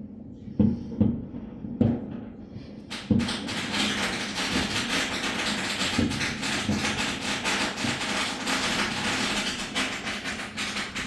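Fireworks: a few separate deep booms, then from about three seconds in a dense, continuous crackling, with an occasional boom through it.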